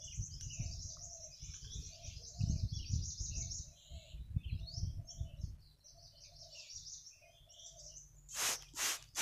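Small birds chirping in a busy high-pitched chorus, with a lower short note repeated a few times a second alongside. Near the end, a quick run of loud swishing strokes, about two or three a second, drowns the birds.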